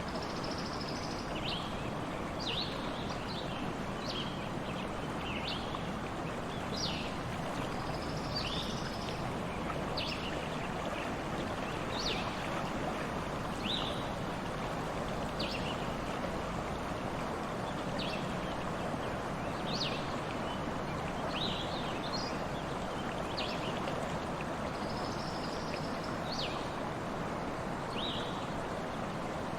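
Stream water flowing steadily, with many short high chirps, about one or two a second, over it.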